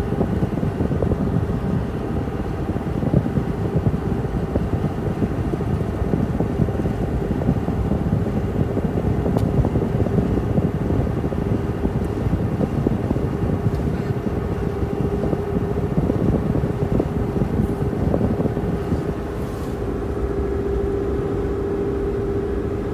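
Steady road and engine noise inside the cab of a 2014 Ford F-150 with the 3.5 V6 EcoBoost at highway speed: an even rumble with a steady hum through it that grows a little stronger near the end.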